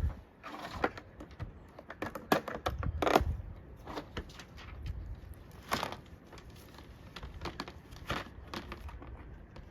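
Compost bin parts being handled: irregular clicks, taps and knocks of the panels being picked up and set down, with light rustling in between.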